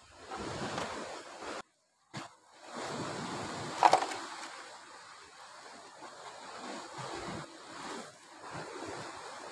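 Sea surf washing on the shore with wind buffeting the microphone. The sound cuts out completely for about half a second near the start, and a single sharp knock stands out about four seconds in.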